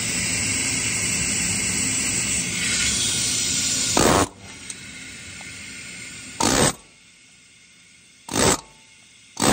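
Pneumatic air hammer with a chisel bit, hammering at the fan clutch's threaded mount on the water pump shaft of a Ford 5.4 3V to break it loose. It runs steadily for about four seconds, then fires in four short bursts.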